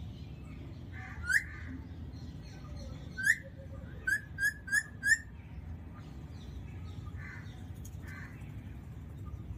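Alexandrine parakeet giving short, rising whistled calls: two single calls a couple of seconds apart, then a quick run of four.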